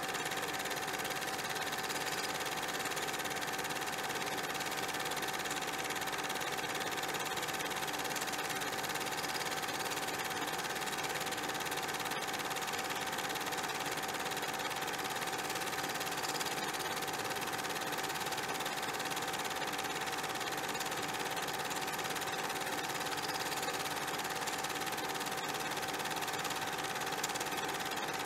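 A steady mechanical running noise with a constant hum-like tone, unchanging in level.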